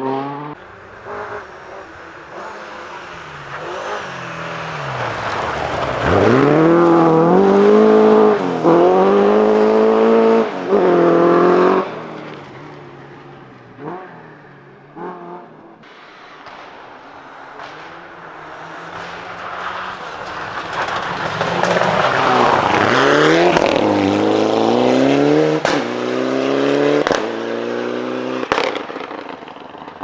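Two rally cars passing one after the other at full throttle on a gravel stage, each engine rising in pitch through the gears with short drops at each gear change. A few sharp cracks come near the end.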